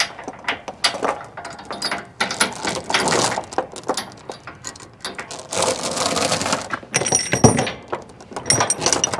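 Steel tie-down chain clinking and rattling as it is handled and hooked to the trailer, with irregular metallic clicks and knocks and a longer rattle about six seconds in.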